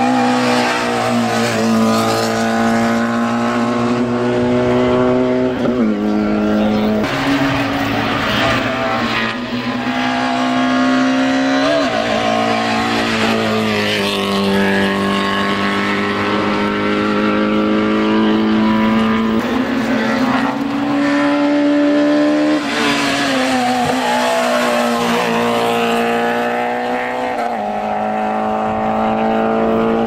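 Peugeot 106 hill-climb race car's engine running hard under acceleration, its revs climbing and then dropping back several times.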